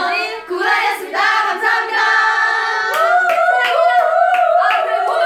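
Several young women singing a drawn-out goodbye together in harmony. From about three seconds in, a long note wavers up and down, and a few hand claps sound over it.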